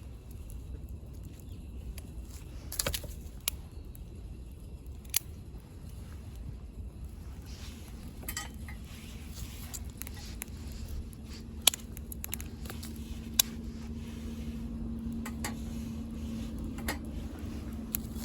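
Wood burning in a small camping wood stove: a low steady rumble of flame with sharp, irregular crackles and pops from the burning sticks, a few of them loud. A faint low hum comes in about halfway.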